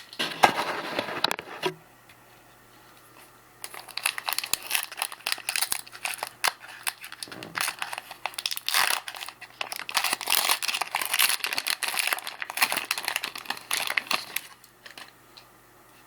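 Trading card pack wrappers crinkling and tearing as packs are opened by hand. It comes in two spells: a short one at the start, then a long stretch from about four seconds in until near the end.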